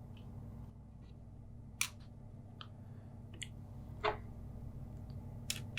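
A handful of small, sharp clicks and taps as the tiny M.2 mounting screw is picked up and handled at the motherboard, the loudest about four seconds in, over a steady low hum.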